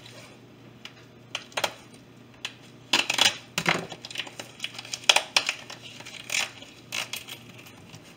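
A whole plastic-wrapped turkey being handled on a countertop while its yellow mesh net bag is pulled off: irregular crinkles, scrapes and knocks, several in quick succession in the middle and later part.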